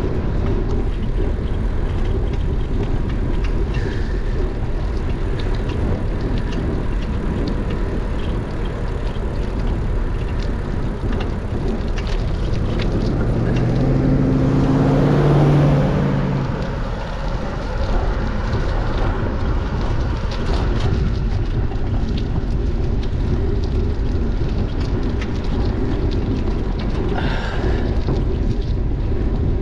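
Steady wind rumble on a bike-mounted GoPro microphone while cycling along a road. About halfway through a car passes close by, its engine sound swelling and dropping in pitch as it goes past.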